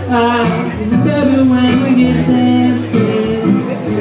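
Live music: a man singing to his own acoustic guitar, holding long notes through the middle.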